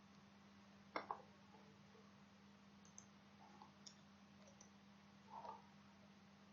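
Near silence with a few faint clicks, the loudest a quick double click about a second in, over a steady low hum.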